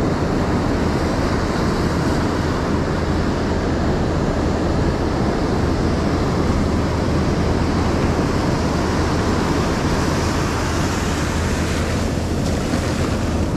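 Steady ocean surf on a beach, with wind rumbling on the microphone.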